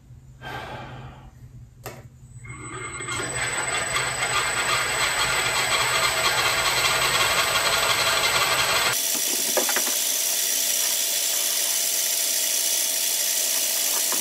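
Bridgeport vertical mill's spindle drive spinning up on its variable-frequency drive over a second or two, then running steadily with the drive's electronic hum. About nine seconds in, the low hum drops away abruptly, leaving the running noise with a few faint ticks.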